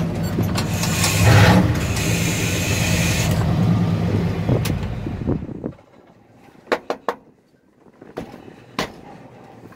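Old grain truck's engine and road noise heard inside the cab while driving, loudest about a second in. The noise stops abruptly about six seconds in, leaving a quiet cab with a few sharp clicks and taps.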